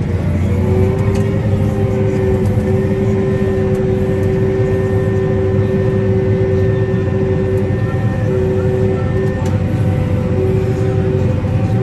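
Heavy harvest machinery running steadily under load: a deep engine rumble with a steady whine from its drive.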